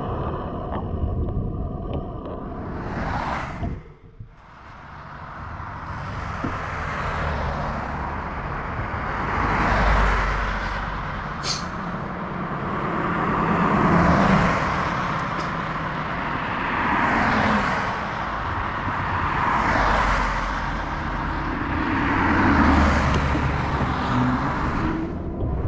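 Road traffic passing: car tyre noise swells and fades every few seconds over a steady low rumble, with a brief drop in sound about four seconds in.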